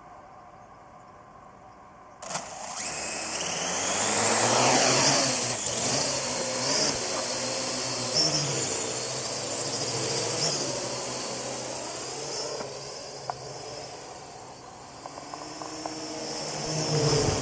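Parrot AR.Drone 2.0 quadcopter's electric motors and propellers spinning up suddenly about two seconds in as it lifts off, then a steady high whine that glides up and down in pitch as the drone flies and manoeuvres. It is loudest a few seconds after take-off, fades somewhat and grows louder again near the end.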